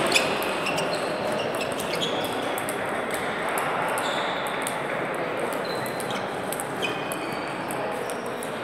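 Table tennis balls clicking off bats and tables in a busy sports hall, many short irregular clicks overlapping from several tables over a steady murmur of the hall.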